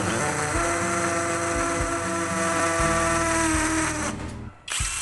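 Lotus 18 V brushless cordless impact drill running with a steady whine as it drills. It stops a little after four seconds in and starts up again near the end.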